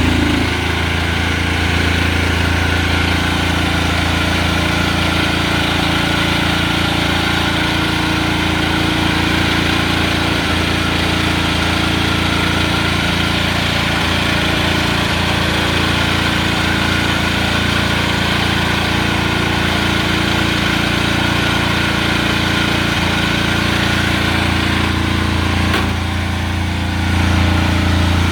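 Engine idling steadily at a constant pitch, dipping briefly near the end and then running a little louder.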